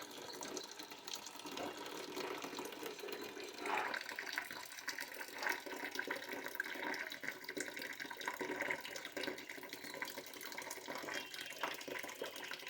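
Hot water draining in a steady stream from a gas steam boiler's opened sight-glass fitting, as the line is flushed out during unclogging. The flow picks up and runs a little louder from about four seconds in.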